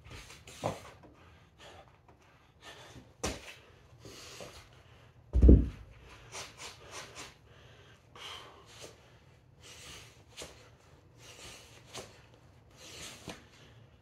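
A man breathing hard with short, sharp breaths during kettlebell swings and floor exercise, with one heavy thud about five and a half seconds in.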